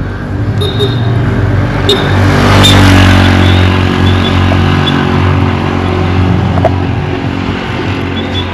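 Motor vehicle engine running steadily, with road noise swelling to its loudest about three seconds in and easing off afterwards.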